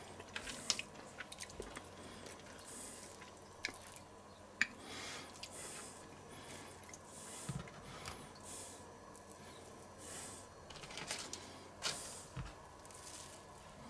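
Hands wrapping raw bacon slices around a stuffed pork neck: faint squishing and handling noises with scattered small clicks and soft rustles, and two dull knocks.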